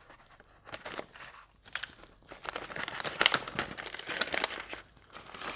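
Clear plastic bag of model-kit parts crinkling as it is handled and pulled open: a few faint clicks at first, then denser crackling from the middle to near the end.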